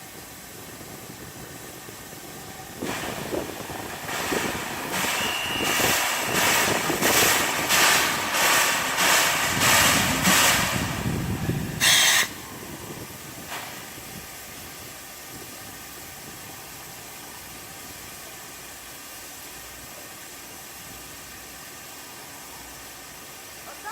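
Steam locomotive 58654 (JNR Class 8620) pulling away, its exhaust chuffing about twice a second with hissing steam. A short sharp hiss of steam comes about twelve seconds in and cuts off suddenly, leaving a low steady background.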